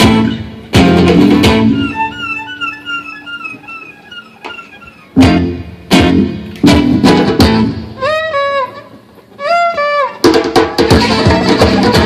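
Live acoustic guitar strumming with violin in a Romanian gypsy-style piece. The violin plays short repeated chirping figures and sliding up-and-down notes that imitate birdsong. About ten seconds in the band comes in louder and denser.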